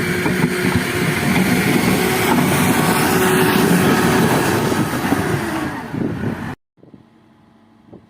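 Backhoe loader's diesel engine running under load, steady and loud; it cuts off suddenly about six and a half seconds in, leaving a much fainter engine sound with a few light clicks.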